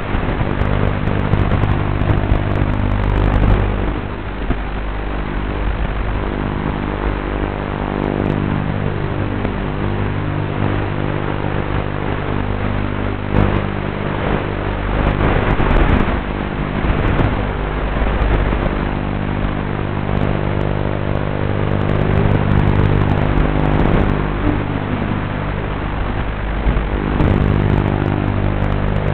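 QAV210 racing quadcopter's electric motors and propellers running hard and steady, their pitch shifting up and down as the throttle changes, heard from on board the drone.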